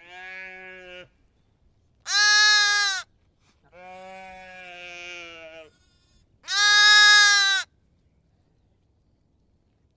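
Sheep bleating: four separate calls. Two louder, higher-pitched bleats alternate with two quieter, lower ones, and the second quiet bleat lasts about two seconds.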